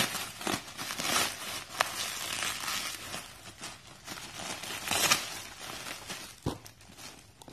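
Clear plastic packaging crinkling and rustling in irregular bursts as it and its packing tape are pulled open by hand, with a dull bump near the end.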